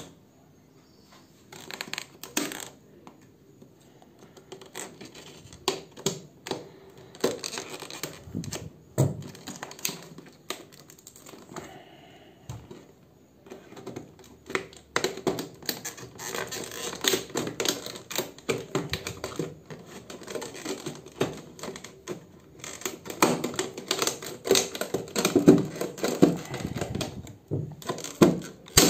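Scissors snipping through a stiff clear plastic blister pack, the hard plastic crackling and clicking in irregular bursts as it is cut and pried apart, busiest in the second half.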